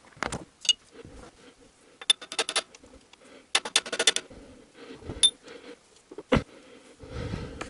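Light metal-on-metal taps and clinks as a steel connecting-rod cap is knocked onto its connecting-rod studs, needed because the studs are slightly bent rather than parallel: two quick runs of several rapid taps about two and three and a half seconds in, a few single ringing clinks, and a duller knock near the end.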